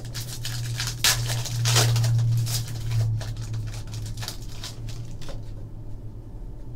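A foil trading-card pack crinkling and tearing open by hand, with a sharp crackle about a second in and the loudest tearing rustle around two seconds, then quieter rustling as the cards are handled. A steady low hum runs underneath.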